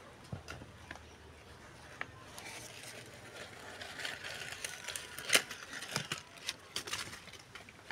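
Plastic sheeting and dry leaves rustling and crinkling as they are pulled out by hand. There are a few scattered clicks at first, then steady rustling with sharp crackles from about two seconds in; the loudest crackle comes about five seconds in.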